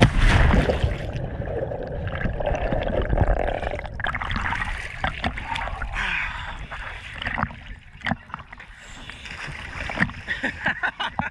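Sea water sloshing and gurgling around an action camera held at the surface, strongest at the start as it comes up out of the water. Near the end comes a splash as a person jumps into the sea.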